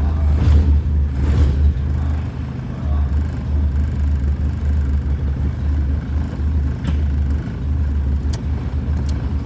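1992 VW Voyage's 1.8-litre four-cylinder engine running steadily at a low, even pitch. Two short bursts of noise come about half a second and a second and a half in, and a few light clicks near the end.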